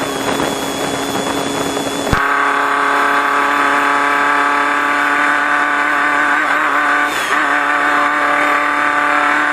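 Off-road race car's engine running at steady revs, heard from within the car. The sound is rougher and noisier for the first two seconds. After a sharp click about two seconds in, the engine note holds steady.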